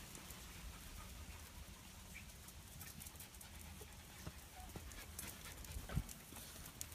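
Small dogs and puppies playing on patio paving: faint scuffling and clicks, with one louder thump about six seconds in.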